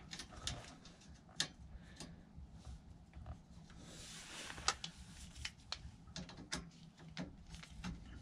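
Faint, irregular metallic clicks and ticks of an Allen key turning in a pannier rack's mounting bolt on a bicycle frame, with a brief rustle of handling about four seconds in.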